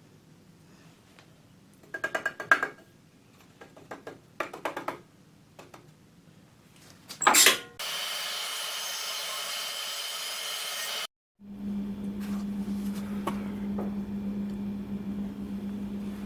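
Workshop knocks and clatter, with one sharp loud knock about seven seconds in. Then a steady hiss that cuts off abruptly, and after a brief gap an electric power tool's motor running steadily with a low hum.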